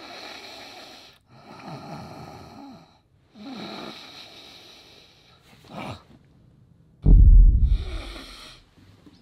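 A person snoring: three long rasping snores, a short snort near the middle, then one loud, deep snore about seven seconds in, the loudest sound.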